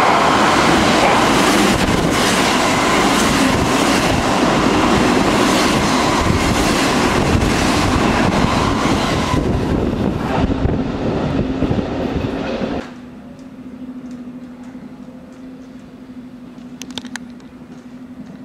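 A Kintetsu train passing through the station without stopping, loud, its wheels clattering rapidly over the rail joints; after about thirteen seconds the sound cuts off abruptly. A low steady hum with a few faint clicks follows.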